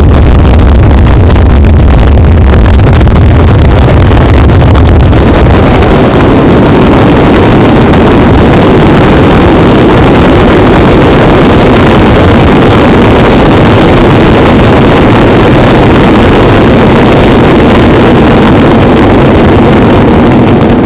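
Ground firecracker battery (batteria alla bolognese) exploding in a dense, unbroken barrage, the reports merging into one continuous roar that overloads the recording. It stops abruptly at the end.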